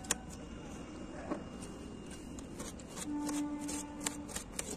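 Scattered sharp clicks and clatter of handling over a low background hum, with a steady pitched tone held for a little over a second about three seconds in.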